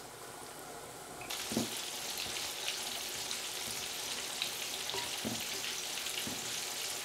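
Cornflour-battered pork ribs deep-frying in hot oil, a steady crackling sizzle. It gets louder and brighter about a second in.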